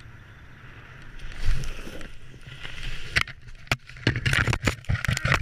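Wind rushing over the microphone, with a dull thump about a second and a half in. From about three seconds in comes a run of sharp cracks and rustling: branches snapping and leaves thrashing as a paraglider comes down into the treetops.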